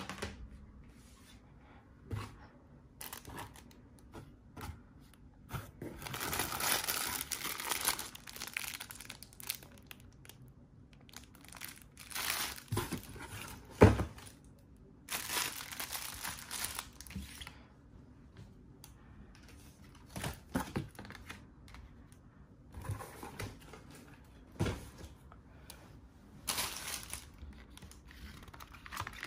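Plastic packaging and a cardboard box being handled: irregular bursts of crinkling and rustling, the longest from about 6 to 9 seconds in, with a single sharp knock about 14 seconds in.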